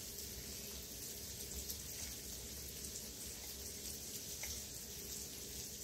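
Faint steady hiss of kitchen background noise, with no clear single event.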